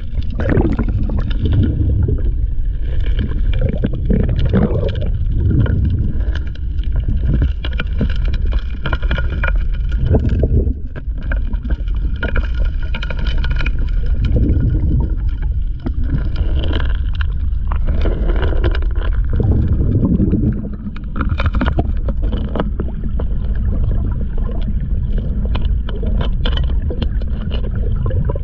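A four-inch gold suction dredge's nozzle sucking up streambed gravel, heard underwater through a waterproof camera case: a heavy, muffled rumble with rocks knocking and clattering into the intake, and a steady drone from the dredge's engine running under it.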